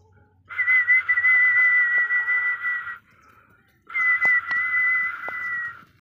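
Two long, steady, high whistles, the first about two and a half seconds and the second about two seconds, with a short gap between: a whistle call used to summon chickens. A few faint ticks sound during the second whistle.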